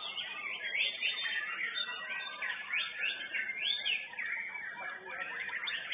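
White-rumped shama (murai batu) singing in contest, a fast unbroken run of varied whistled notes that rise and fall in quick succession.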